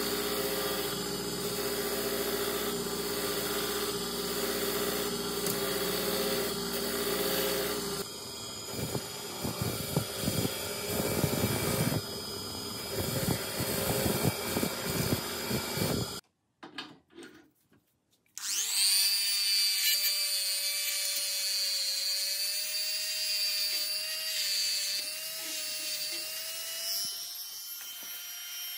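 A motor-driven wire wheel runs steadily while a rusty cast-iron vise body is pressed against it, scrubbing off rust. Partway through the scraping turns rougher and more irregular. After a short gap, a hand-held rotary tool starts with a high, steady whine as its small bit works over the vise's jaws.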